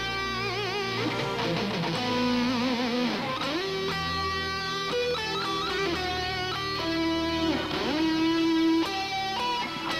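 Electric guitar solo: sustained lead notes with a wide, wavering vibrato, pitch bends that slide up and down, and quicker runs of notes in between.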